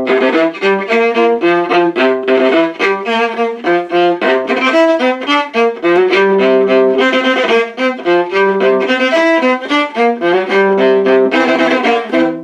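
Solo viola bowing a fast rock riff of quick, separate, detached notes.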